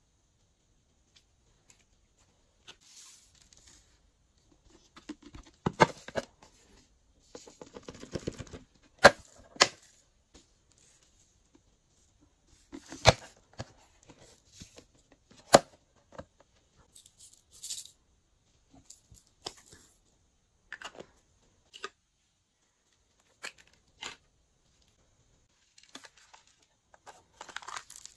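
Glossy slime being handled, giving scattered sharp clicks and sticky pops with short crackly stretches, separated by silent gaps.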